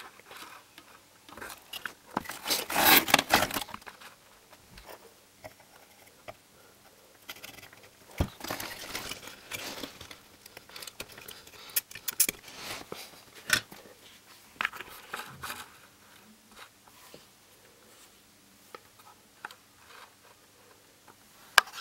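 Scraping and rustling as a TV circuit board and tools are handled while a small electrolytic capacitor is desoldered, in several short bursts, with one sharp click about eight seconds in.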